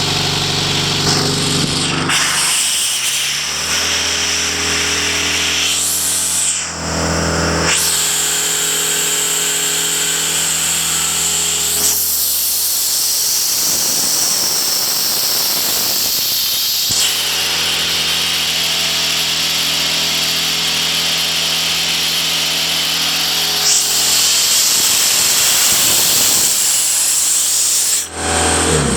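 Sullivan 210 portable air compressor running, its engine holding a steady note while air hisses loudly, the hiss swelling for several seconds at a time twice in the second half.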